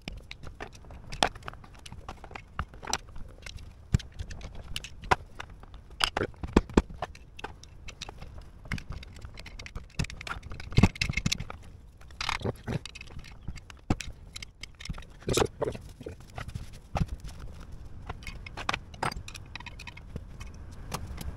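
Irregular sharp metal knocks and clicks with scraping and a few brief squeaks, as the three-piece hydraulic gear-pump casing of a John Deere Model M tractor is worked apart by hand with tools; it comes apart only with difficulty.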